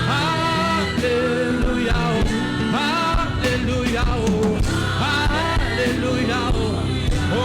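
Live gospel worship music: a band with guitar and a steady beat, and singing voices carrying a melody.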